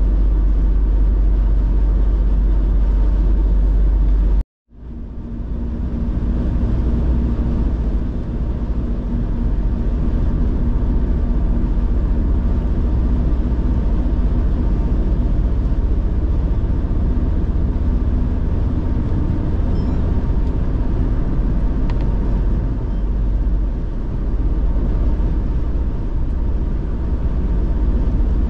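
A car being driven on a highway: steady low road and wind rumble that cuts out completely for a split second about four and a half seconds in, then resumes.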